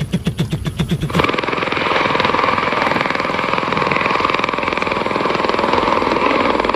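V-22 Osprey tiltrotor flying in helicopter mode: a fast, steady rotor chop over a steady whine, starting suddenly about a second in. Before it, a rapid rhythmic pulsing.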